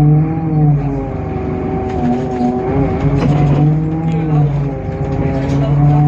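Temsa Avenue LF city bus's DAF PR 228 diesel engine running, its pitch rising and falling gently. A strong low drone swells in and fades three times over it.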